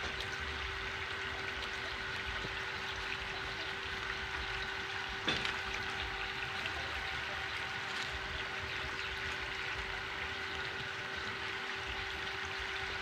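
Steady running water splashing onto the ground during a dog's soapy bath, with a steady hum underneath and one sharp click about five seconds in.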